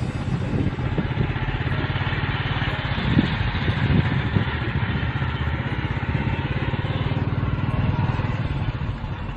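Motorcycle engine running steadily with a fast pulsing beat while riding along a dirt track, with rushing wind noise and a few louder knocks between about three and four and a half seconds in.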